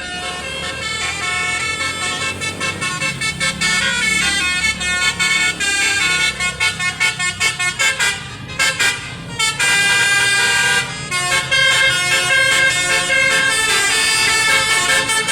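Tour-bus 'basuri' telolet musical air horns playing melodic phrases of several notes at once, stepping from note to note, with a run of quick staccato toots about halfway through. The buses' engines run underneath.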